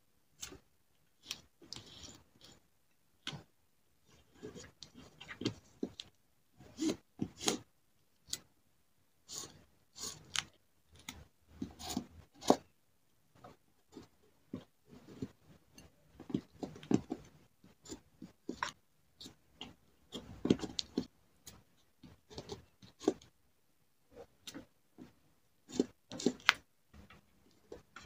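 Tweezers and paper stickers being handled on a paper journal page: an irregular run of small clicks and taps with short papery rustles and scrapes as stickers are lifted, placed and pressed down.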